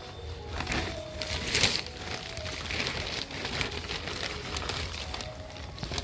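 Plastic sheeting and a tarp rustling and crinkling as they are pushed and brushed against, in irregular bursts, loudest about a second and a half in.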